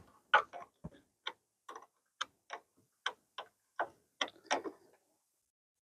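Ratcheting box-end wrench clicking as it is swung back and forth to tighten a bolt at a truck battery. About a dozen sharp clicks, roughly three a second, stop a little under five seconds in.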